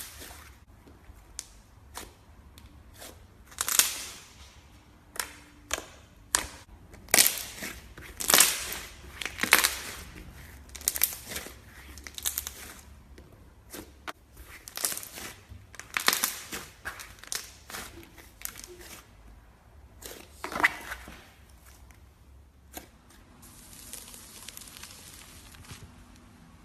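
Slime being worked by hand, making irregular sharp pops and clicks, at times several in quick succession. In the last few seconds these give way to a steady faint hiss.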